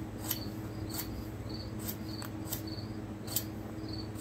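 A cricket chirping in short, even chirps about twice a second over a steady low electrical hum, with a few sharp clicks.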